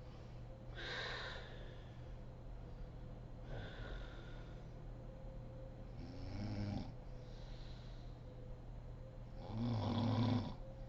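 A sleeping woman snoring: four breaths about three seconds apart. The first two are airy, the last two carry a low snoring tone, and the last is the loudest.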